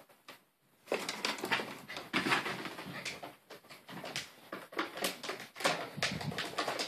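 A small white Maltese poodle close to the phone, making irregular, short noisy sounds as it moves and breathes, with a brief pause less than a second in.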